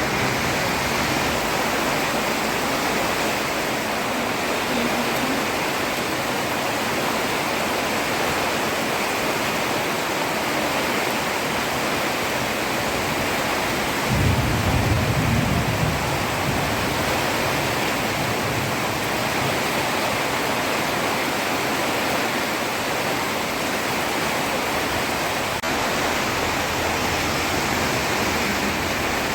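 Heavy rain pouring steadily onto a road, an even hiss. About halfway through, a brief low rumble rises under it and fades within a couple of seconds.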